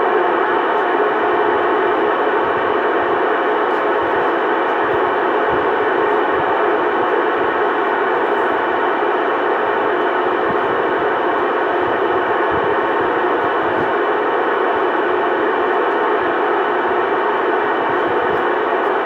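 CB radio speaker putting out a steady rush of static-like noise with faint steady tones running through it, and no voice on the channel.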